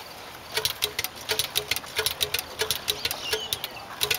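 Steady mechanical clicking from the custom steam-powered motorcycle's machinery, starting about half a second in: about four sharp clicks a second, some doubled, each followed by a brief low hum.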